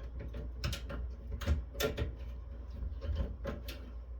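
Scattered light clicks and knocks, about seven, from a Cisco network switch's sheet-metal chassis and circuit board being handled and pried at while the board is worked loose, over a low steady hum.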